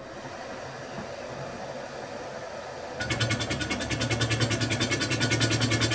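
Milling machine spindle running, then about three seconds in a boring bar starts cutting into the duplex stainless steel boiler shell, a louder, fast, evenly pulsing cutting noise that holds steady.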